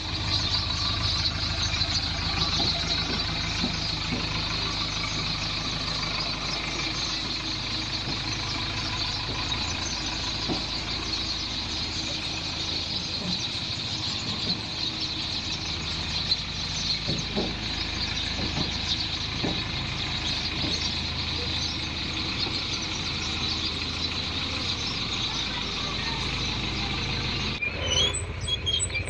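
JCB 3DX backhoe loader's diesel engine running steadily under work, with a few short knocks from the digging gear in mud and rock.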